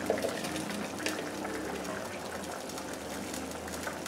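Chicken and broth simmering in a frying pan on a gas burner: a steady bubbling with many small pops, and one short louder click just after the start.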